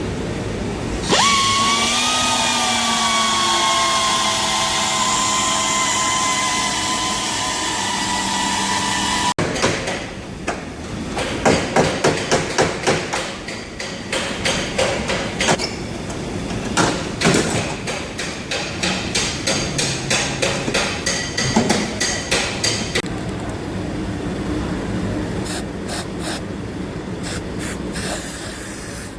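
A power tool spins up, its whine rising briefly and then running steadily with a hiss for about eight seconds before cutting off. It is followed by a long run of rapid, uneven hammer blows on car body sheet metal, with a few more sharp knocks near the end.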